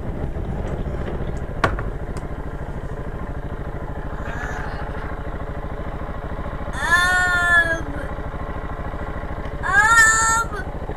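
Dirt bike engine running steadily, with a sharp click about a second and a half in. About seven and ten seconds in come two loud high-pitched cries, each under a second long.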